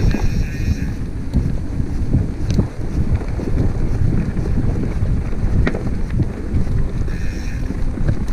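Mountain bike rattling down a dirt trail, with wind buffeting the microphone in a steady rough rumble and a few sharp clicks. A high buzz comes in during the first second and again about seven seconds in.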